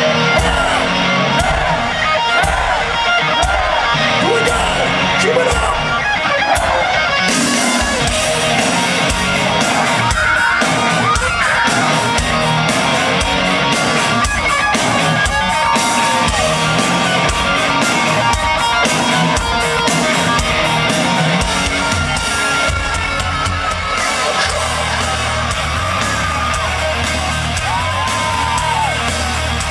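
Heavy metal band playing live through a concert sound system: distorted electric guitars over steady drums, with crowd yells mixed in. A heavier bass line comes in about 24 seconds in.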